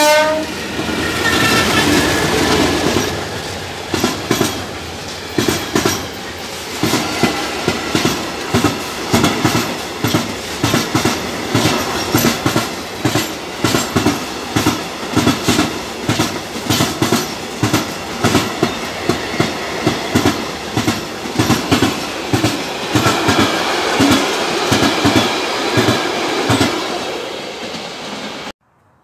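A freight train hauled by an MLW diesel locomotive passes close by. A stacked horn note ends at the very start, then comes the locomotive's engine as it goes past, followed by a long, steady rhythm of clicks from the wagons' wheels over the rail joints. The sound cuts off suddenly near the end.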